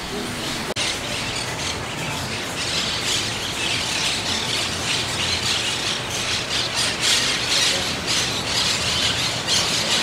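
Many birds calling at once, a steady dense din of high-pitched calls.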